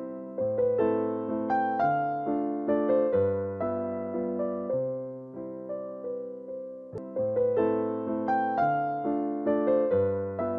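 Background music: a soft electric piano playing a gentle melody over low bass notes, each note struck and fading.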